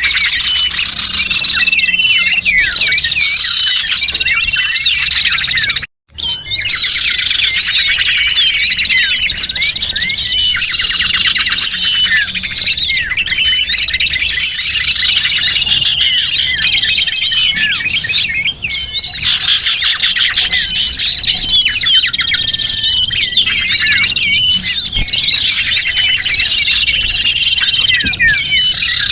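Dense chorus of many small birds chirping and twittering over one another, quick high chirps and trills without pause: a recorded lure call for attracting small birds. The sound cuts out for a split second about six seconds in.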